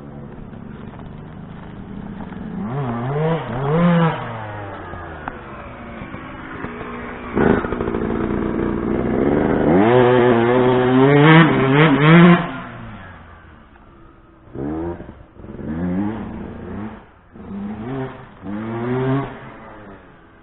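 2007 Yamaha YZ125's single-cylinder 125 cc two-stroke engine revving hard and easing off as the dirt bike laps the track. The pitch climbs and falls repeatedly, loudest around four seconds in and again over a longer pull near the middle, with a sharp crack about seven and a half seconds in. Toward the end come shorter bursts of throttle, quieter as the bike moves farther off.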